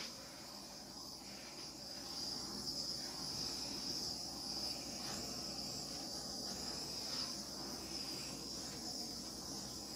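Small handheld torch running with a steady high hiss, passed over a wet acrylic pour to bring up cells.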